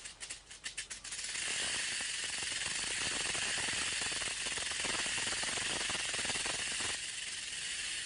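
Rattlesnake shaking its tail rattle: a few separate clicks in the first second, then a steady, high buzz. It is the snake's warning to large animals not to step on it.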